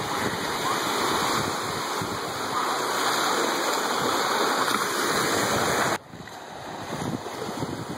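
Small waves breaking and washing up over the sand at the shoreline, a steady rushing wash that drops abruptly to quieter surf about six seconds in.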